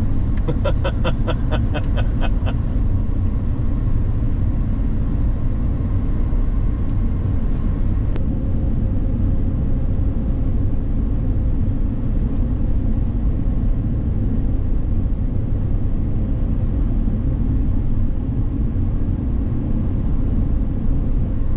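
Steady engine and road rumble of a vehicle driving at speed, heard from inside the cabin. In the first two seconds or so a rapid series of short high beeps sounds, and a single sharp click comes about eight seconds in.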